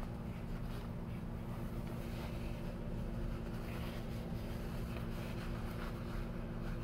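Paper towels rustling and crinkling faintly as hands squeeze a hot baked potato open, over a steady low hum.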